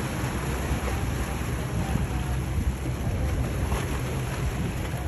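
Motorboat cruising past with a steady low rumble and the rush of water from its wake, mixed with wind buffeting the microphone.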